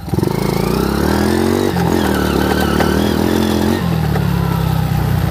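Modified dirt bike's engine revving under riding load: its pitch climbs, drops about two seconds in, climbs again, then settles lower near the end.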